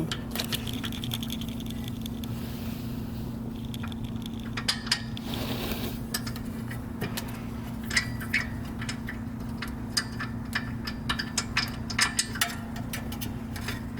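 Irregular metallic clinks and taps of hand tools and the caliper bolt being fitted back into a car's rear brake caliper, over a steady low hum.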